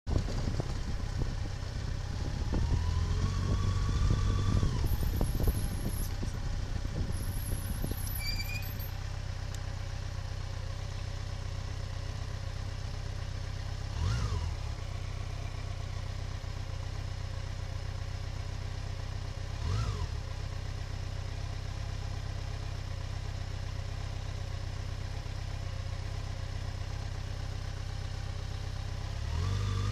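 A motor vehicle engine running steadily with a low hum, with a whine that rises and levels off a few seconds in and two brief knocks about six seconds apart.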